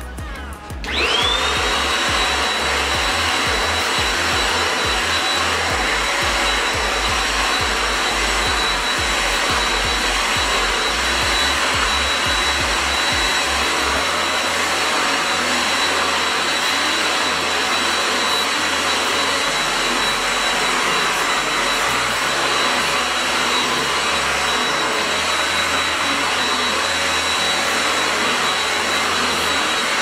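Mondial Cyclo 2-in-1 stick vacuum, used handheld with its crevice nozzle, switches on about a second in with a quickly rising whine. It then runs steadily, a high motor whine over a rush of air, as it sucks cat hair off a fabric chair seat.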